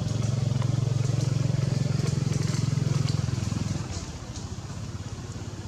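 A small engine running steadily with a low, rapidly pulsing hum, which falls away about four seconds in.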